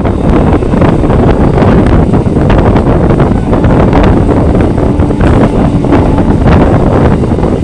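Wind buffeting the microphone over the rumble and rattle of a moving passenger train.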